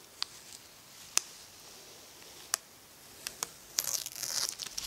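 Masking tape being peeled off a painted panel: a few scattered light ticks, then a crackling rip about four seconds in as the tape comes away.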